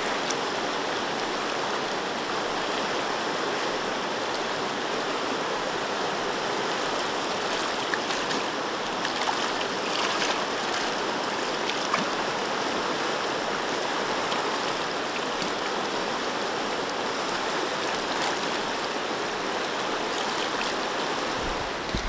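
Fast river current rushing over rocks in a riffle, a steady rush of water; the river is running high after rain.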